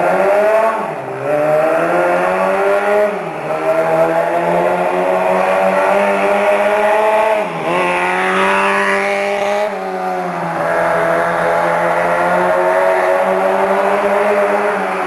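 Mini motorcycle's 125 cc four-cylinder engine running hard at high revs as it is ridden. Its pitch climbs with the throttle and drops briefly about four times before climbing again.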